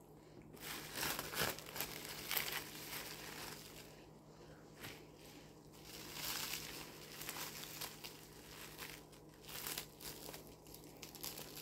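Plastic cling film crinkling and rustling in irregular bursts as hands open it around a ball of fufu and pull pieces off.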